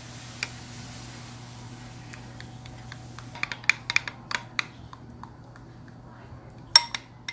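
Metal spoon stirring chocolate chips into hot cream in a glass bowl, clinking and scraping against the glass. The clinks come quickly from about halfway, with the loudest near the end, over a steady low hum.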